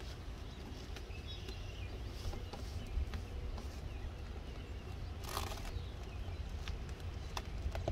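Faint rustling and light taps of self-adhered flashing membrane being smoothed down by hand along a skylight frame, with a short crinkle about five seconds in, over a steady low rumble.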